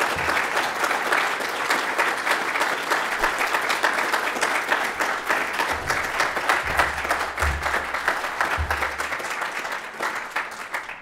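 Audience applauding, the clapping steady throughout and dying away at the very end.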